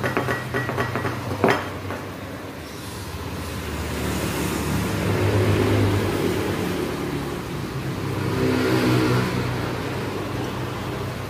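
A few sharp metallic clicks in the first second or so, then motor vehicles passing by twice, each engine sound swelling and fading.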